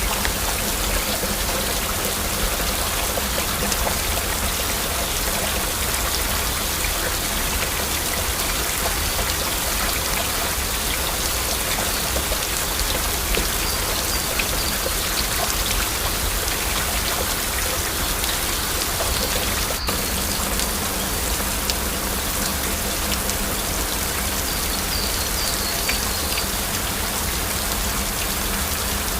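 Heavy rain falling steadily, with many individual drops ticking against a hard surface.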